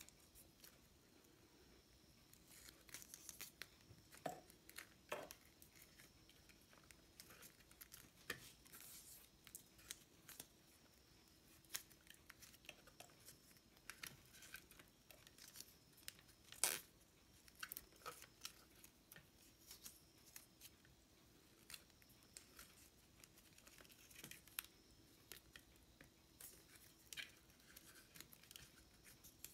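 Faint small clicks and crackles of insulation tape being pulled off the roll and wrapped around the capacitor's wire joints, with the wires handled in between; one sharper crackle about halfway through.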